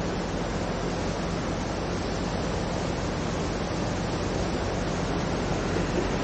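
A stream in spate after two days of rain: muddy floodwater rushing steadily and turbulently through its channel, an even, unbroken rush of water.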